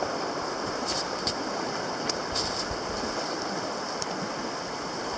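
River water running steadily over shallow riffles around a floating packraft, with a few brief splashes.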